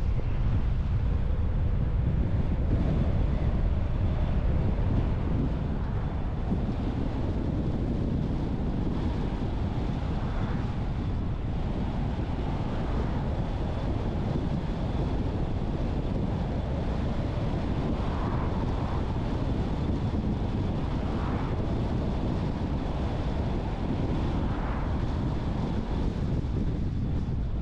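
Steady road and wind noise from a moving car: tyre rumble and wind buffeting, strongest in the low end and a little louder for the first five seconds.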